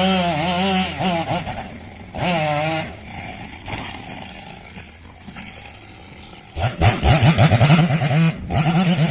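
Two-stroke chainsaw engine with a wavering pitch, dropping to a quieter low stretch in the middle, then revved hard in quick, choppy bursts from about two-thirds of the way in.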